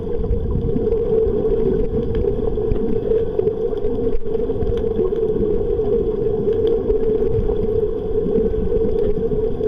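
Steady underwater hum over a low rumble, even in level throughout.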